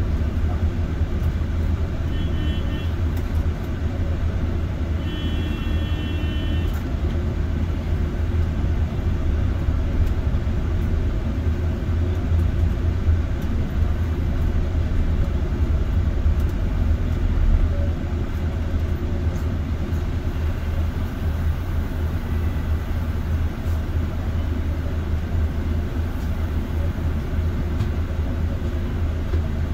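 Inside a moving city bus: the steady low rumble of the engine and road noise. Two short high electronic tones sound a few seconds in.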